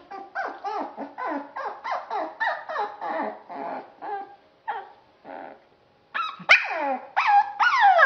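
Puppy yipping and whining: a quick string of short high cries, each dropping in pitch, about three a second. It thins out for a moment past the middle, then comes back louder with sharper yelps near the end.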